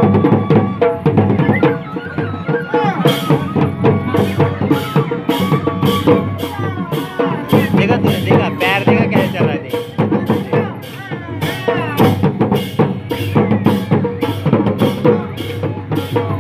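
Live Odia folk dance music: barrel drums beating a steady rhythm under a wavering melody line. From about three seconds in, a sharp crisp stroke sounds about twice a second.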